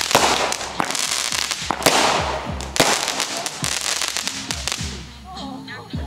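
Consumer fireworks going off in a rapid series of sharp bangs and hissing, crackling bursts, thinning out and quieter after about five seconds.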